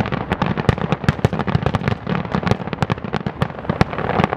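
Aerial fireworks display: a dense barrage of rapid bangs and crackling from bursting shells over a low rumble of booms.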